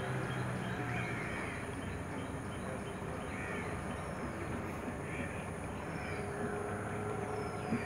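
Small motorboat's engine hum fading out about a second in as the boat draws away, followed by birds calling: several short calls and a few thin falling whistles over a steady background hiss.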